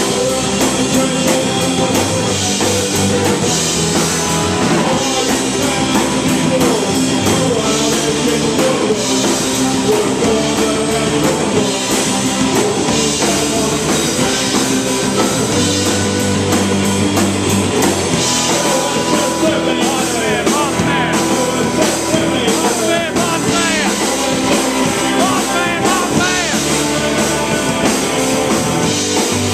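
Live rock band playing: electric guitars and a drum kit, with sung vocals at the microphone.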